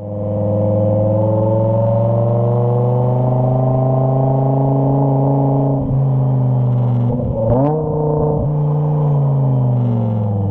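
BMW M5 E60's V10 engine, heard from the exhaust end, pulling under load with its pitch rising slowly. About seven seconds in the note breaks for a gearshift with brief dips and a quick blip, then it runs on and its pitch falls as it eases off near the end.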